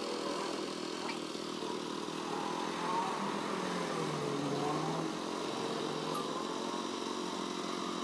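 Kawasaki Barako 3 Fi's air-cooled single-cylinder engine idling steadily at about 1,400 rpm. The idle is set too low, under the 1,600–1,700 rpm a kickstart bike needs, and is being raised at the throttle-body idle screw.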